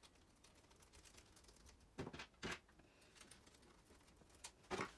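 Near silence broken by a few faint clicks and taps, a pair about two seconds in and another pair near the end: small screws and parts of an RC truck's suspension being handled.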